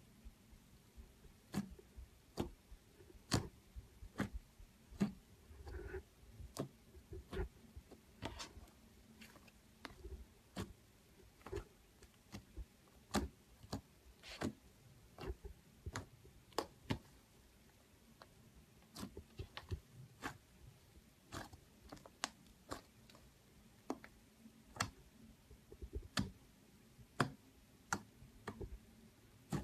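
Fingers pressing and poking thick white fluffy slime, making irregular sharp clicks and pops a few times a second, some much louder than others, as trapped air bursts.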